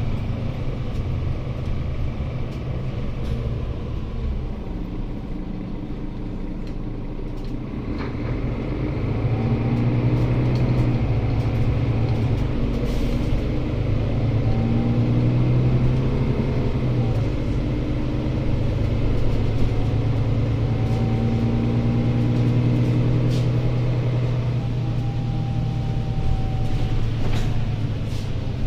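Mercedes-Benz Citaro C2 city bus heard from inside the passenger cabin while driving: a steady low engine drone with whining tones that glide up and down in pitch as the bus changes speed. It is softer for a few seconds, then grows louder from about eight seconds in, with a few faint rattles.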